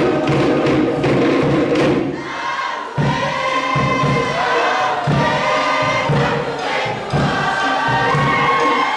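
A group of voices singing and chanting together in Cook Islands style, over a thumping beat that pauses briefly about two seconds in.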